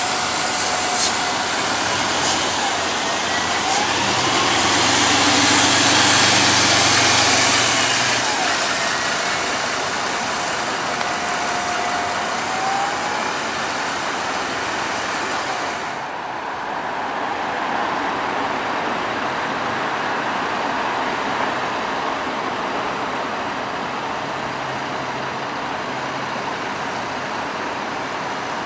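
Mercedes-Benz Citaro city buses moving off and manoeuvring, diesel engines running. The engine is loudest a few seconds in, with a transmission whine that rises and falls in pitch.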